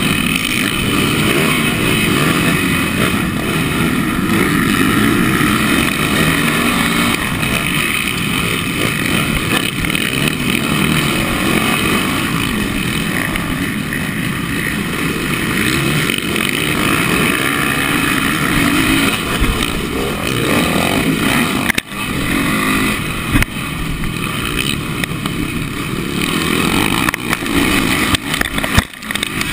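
Motocross motorcycle engines running hard at full race pace, the camera bike's own engine close up amid a pack of other bikes. The sound drops out sharply for a moment twice in the last third.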